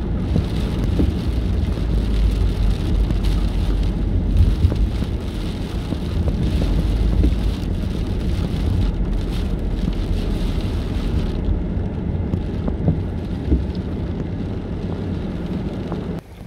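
A car driving on a wet road in light rain, heard from inside the cabin: a steady low road rumble with tyre and rain hiss. It breaks off abruptly near the end.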